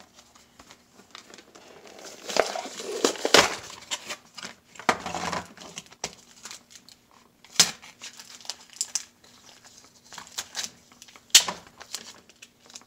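Plastic blister packaging and its cardboard backing being crinkled and pulled open by hand: irregular crackling and rustling, heaviest a few seconds in, with a few sharp snaps later on.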